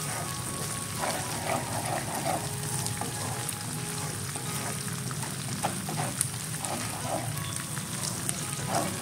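Oil sizzling and crackling steadily as grated galangal fries in a pan, stirred with a wooden spatula; it is being fried until it turns brown. Faint background music underneath.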